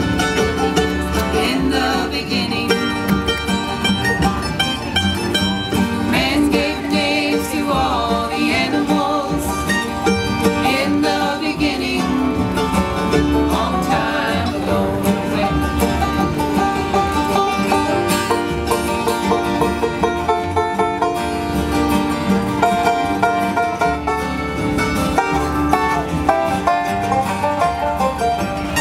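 Live bluegrass band playing an instrumental break, with banjo, mandolin, acoustic guitars and upright bass.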